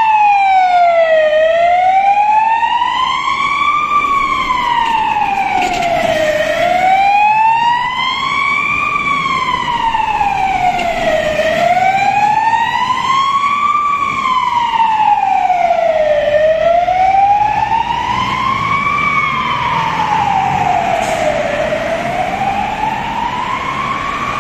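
Police car siren in slow wail mode, its pitch rising and falling evenly about once every five seconds, over traffic rumble.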